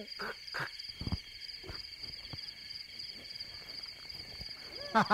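Steady chirring of crickets, two continuous high tones, with a few soft knocks and rustles in the first half. A man starts giggling in quick pulses right at the end.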